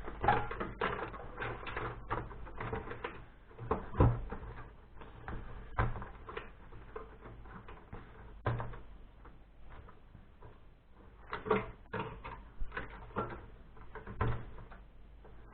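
Irregular clicks, knocks and clatter of an HP compact desktop PC being taken apart by hand, its parts knocking as they are handled and pulled loose. A few sharper knocks stand out, about four seconds in and again past the middle.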